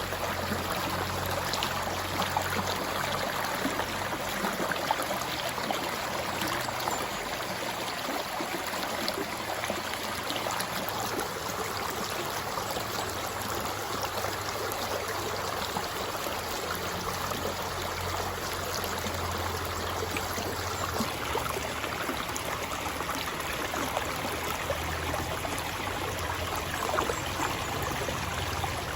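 River water flowing and burbling over stones in a steady rush, with a low hum fading in and out underneath.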